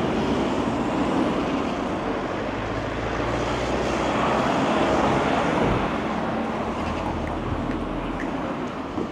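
City street traffic: cars passing with engine and tyre noise. The noise swells to its loudest about halfway through and eases off near the end.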